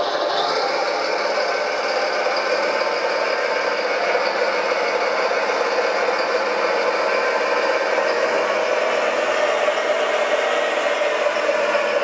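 Electric drive motors and hydraulic pump of a large radio-controlled Volvo wheel loader running with a steady whine as it raises a stone block on its forks and drives off with it.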